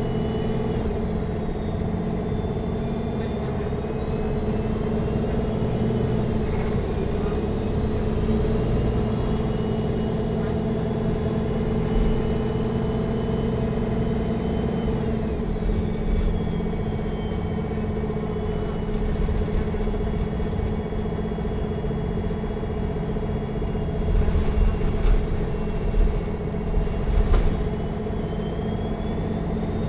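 Neoplan N4516 Centroliner Evolution city bus heard from inside the cabin while driving: the diesel engine runs steadily, with a high whine that rises in pitch and then falls back. Near the end come several thumps and knocks.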